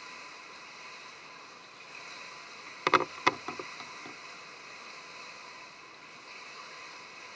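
Steady hiss of an indoor swimming pool, broken about three seconds in by a quick cluster of sharp clicks and knocks as a diving mask is handled.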